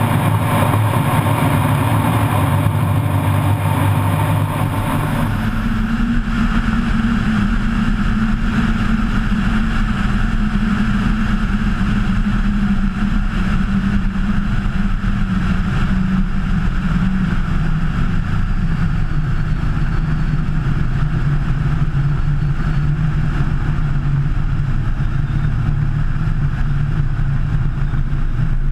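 Kitfox IV floatplane's engine and propeller running steadily at power. The tone changes abruptly about five seconds in, then holds steady.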